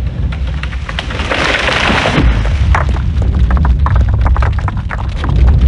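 A loud, deep rumble that starts suddenly, with crackling and popping throughout, like a thunder or explosion sound effect.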